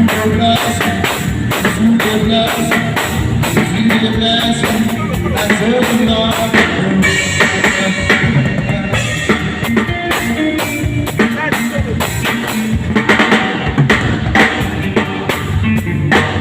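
Drum kit played to a steady beat along with recorded music.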